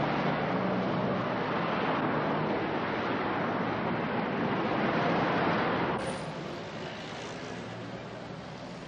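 City street traffic: cars driving past in a steady rush of engines and tyres, which drops to a quieter background about six seconds in.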